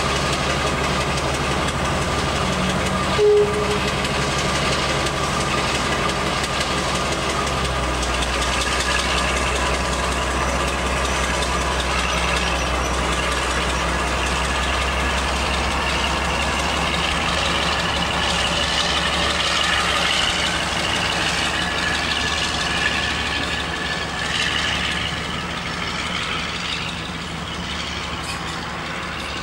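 Class 52 'Western' diesel-hydraulic locomotive's twin Maybach engines idling, with a brief toot about three seconds in. The engine note changes about eight seconds in as power is applied, and the locomotive then runs under load, growing fainter near the end as it pulls away.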